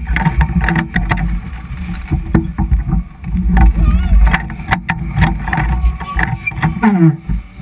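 Rushing air buffets the microphone of a camera mounted on a swinging slingshot-ride capsule, giving a constant heavy rumble. Over it the riders shout and exclaim in bursts, with one falling yell near the end.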